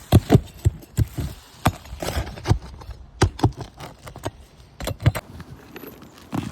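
An irregular run of sharp knocks and clatters, some two dozen in quick succession.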